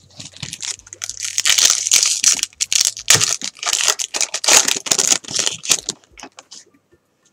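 Foil wrapper of a Bowman Chrome baseball card pack crinkling and tearing as it is ripped open by hand. The dense crinkling starts about a second in and stops at about six seconds.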